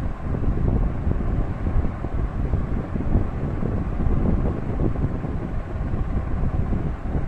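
Continuous, uneven low rumble of wind buffeting the microphone.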